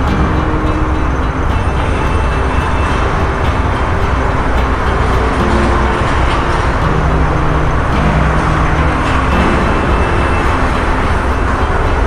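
UD Quester GWE 370 truck's diesel engine running steadily as the rig moves slowly under heavy load, heard from on board with a deep, constant rumble and road noise.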